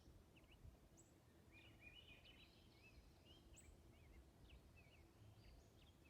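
Faint wild birdsong: thin, high chirps repeating every second or two, with a burst of twittering notes through the middle, over a low background rumble.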